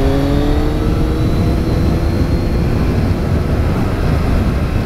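Motorcycle engine running at road speed under heavy wind rush on the microphone. Its engine note climbs gently over the first two seconds or so, then sinks into the wind noise.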